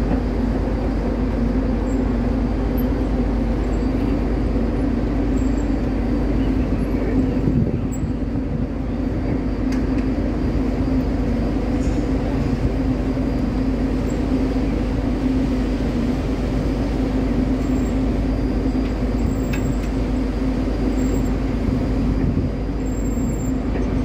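Steady drone of a moored ship's engines and onboard machinery, a constant low hum with a few unchanging tones.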